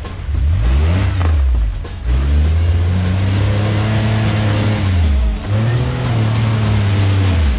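Modified Jeep Wrangler JK's engine revving hard in several rising and falling pushes, held high for a couple of seconds at a time, while its mud tyres spin and throw mud in deep mud. Music plays faintly underneath.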